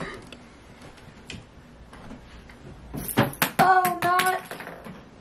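Bedding being handled: soft rustling of a blanket and pillow, with sharper crackles about three seconds in. Right after, a person's brief high-pitched sing-song vocal sound.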